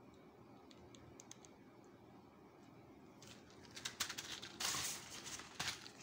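Plastic-and-card packs of artificial nails being handled over a pile of them: a quiet start with a few faint ticks, then, about three seconds in, a couple of seconds of crackly rustling and clicking as one pack is set down and another picked up.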